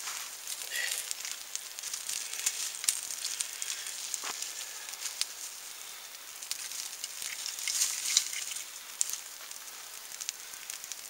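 Small fire of birch bark and pine feather sticks just catching: a steady hiss with many sharp crackles. Small dry twigs rustle as a handful is laid on, loudest about eight seconds in.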